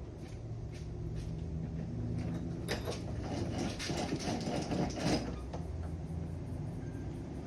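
A jib roller furler at work: mechanical clicking and rattling for a couple of seconds in the middle, over a steady low hum.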